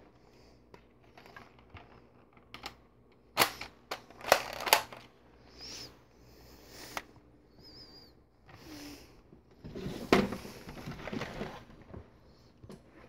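Scattered sharp clicks and clacks from a plastic Nerf blaster being handled, with a few loud ones about three and a half to five seconds in and another cluster about ten seconds in. Two faint, brief high squeaks come in between.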